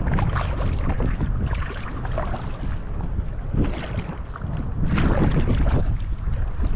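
Paddle strokes splashing as an inflatable kayak is paddled through the water, over a steady low rumble of wind on the microphone.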